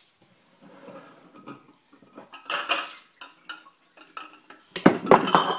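Glass beer bottles clinking and knocking against each other and a steel pot as they are handled, with the loudest clatter near the end.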